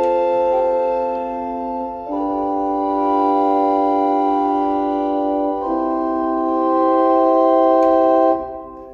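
Church pipe organ holding three sustained chords in turn, the chord changing about two and about five and a half seconds in. The pipes behind the swell-box shutters grow louder and softer as the shutters are opened and closed. The sound stops abruptly about eight seconds in.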